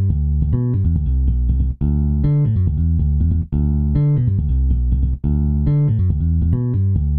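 Instrumental background music: a low, note-by-note riff that repeats about every second and three-quarters, with a brief break before each repeat.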